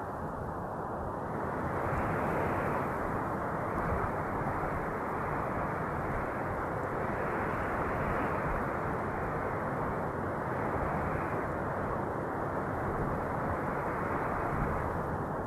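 Steady wind noise, a low rushing sound that swells gently a couple of seconds in and rises and falls slightly without any gusts or breaks.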